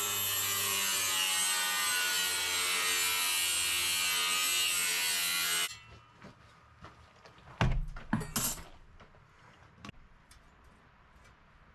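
A power tool cutting strips of saw-blade and washing-machine steel into pieces, running steadily for about six seconds and then stopping suddenly, followed by a few metal clanks about eight seconds in.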